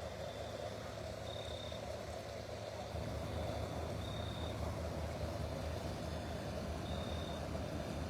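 Outdoor night ambience: a steady low machine hum that grows louder about three seconds in, with a short high chirp repeating about every three seconds.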